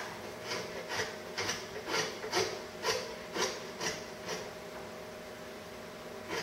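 Rhythmic rasping strokes, about two a second, over a steady hum. They stop for a couple of seconds near the end.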